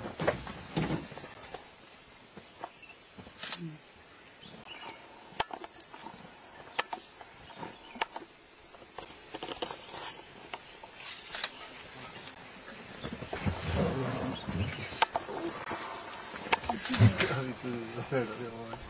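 Steady high-pitched insect chorus droning without a break, with scattered sharp clicks and, in the last few seconds, wavering pitched cries.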